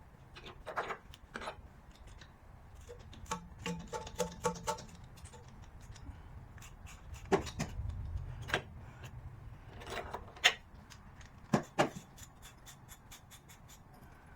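Hand tools clinking and knocking against metal parts, irregular sharp knocks with a short run of ringing clinks about four seconds in and the loudest knocks in the second half.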